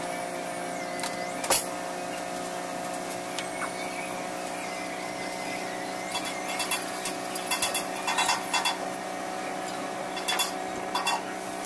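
Steady machine hum in a workshop, with one sharp knock about a second and a half in and scattered light clicks and knocks of metal parts being handled and cleaned later on.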